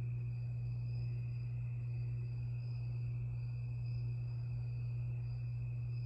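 52-inch Harbor Breeze Lakeside II ceiling fan running steadily at low speed, the only speed it manages with its bad capacitor. A steady low motor hum with a faint high whine that wavers slightly.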